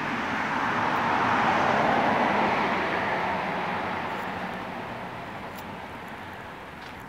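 A car driving past on asphalt: tyre and road noise swells to a peak about two seconds in, then slowly fades away.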